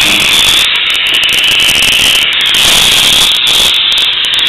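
Steady, loud hiss of an HHO (oxyhydrogen) welding torch flame burning from a 0.5 mm nozzle, even and high with no change in pitch.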